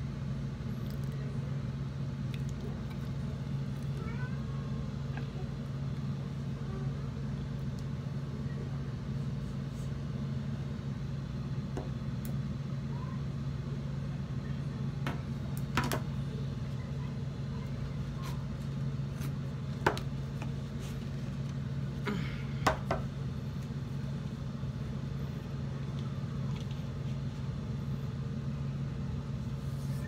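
A steady low hum, with cornstarch being chewed in the mouth: a few short sharp crunching clicks from about the middle, the sharpest about two-thirds of the way through.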